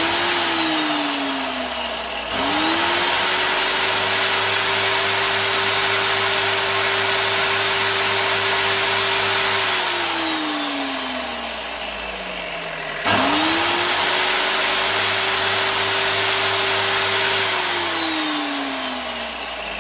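Angle grinder with a grinding disc switched on twice, each time spinning up quickly to a steady whine and running for several seconds, then falling in pitch as the disc coasts down after switch-off. It is used here to sharpen a fishing hook.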